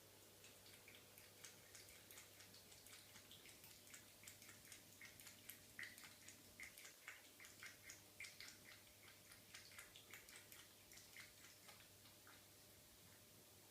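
A cat lapping water with its tongue: faint, quick wet laps, a few a second, that stop near the end.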